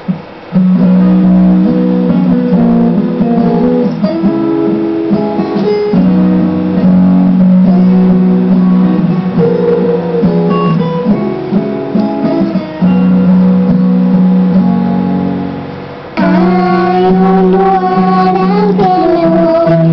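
Guitar-led music: a short introduction of held notes and chords, then a girl's singing voice comes in about sixteen seconds in.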